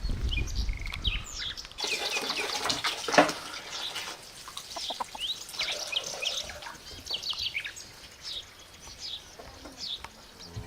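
Many birds chirping, with short high calls overlapping throughout. A low rumble runs in the first couple of seconds, then a rushing hiss with a sharp click comes in from about two to four seconds in.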